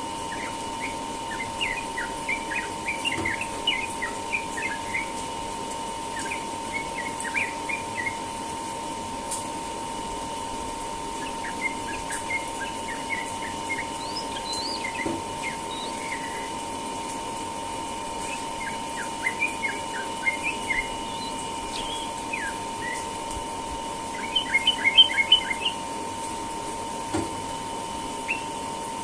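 Yellow-vented bulbul singing in quick phrases of short chirping notes, a phrase every few seconds, with the loudest burst near the end. A steady hum runs underneath.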